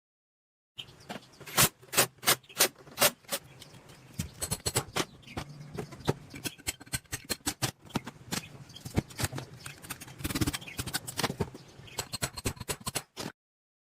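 Irregular metallic tapping and knocking, with a few louder strikes one after another about two seconds in, then quicker lighter clatter: hand work on metal parts.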